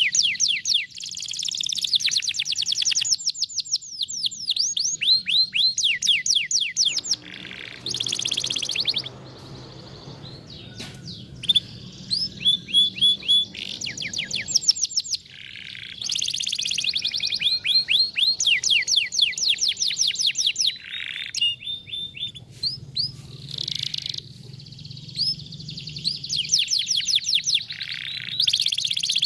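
Canary singing in fast rolling trills of quick downward-sweeping notes, in several bouts broken by short pauses and changes of tempo.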